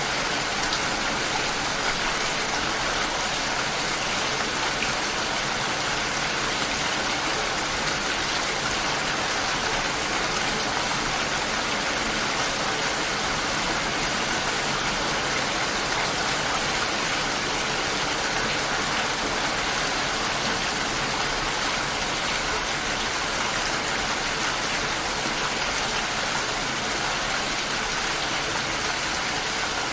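Steady light rain falling, an even patter with no thunder and no music.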